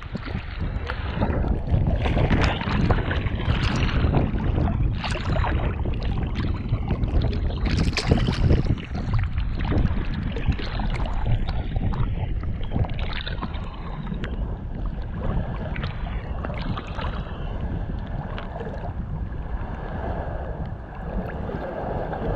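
A Cattle Dog x Ridgeback paddling through choppy water, heard from right at its neck: close, irregular splashing and sloshing of water, busiest in the first half, over a low rumble of wind on the microphone.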